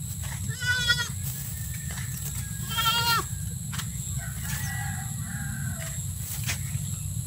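A farm animal bleating twice, each a short wavering cry, about two seconds apart, then a fainter, longer call near the middle. A steady low rumble runs underneath.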